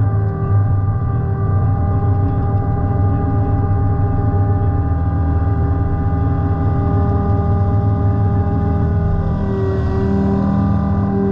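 Takeuchi 145 excavator's diesel engine running steadily under load, with a steady hydraulic whine as it drives the ditch cutter bar through reeds. The pitch of the whine changes briefly near the end.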